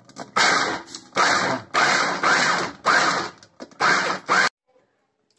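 Small electric food chopper run in about five short pulses, each around half a second, grinding fried peanuts with oil into amlou paste; it stops near the end.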